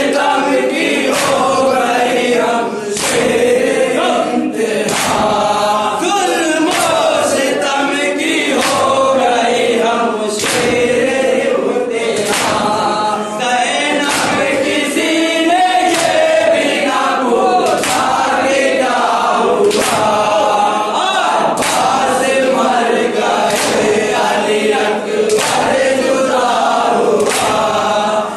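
A group of men chanting a Urdu nauha (mourning lament) together, with sharp chest-beating strikes (matam) keeping time about once a second.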